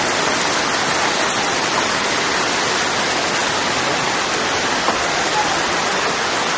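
Steady, loud rush of water, even and unbroken throughout.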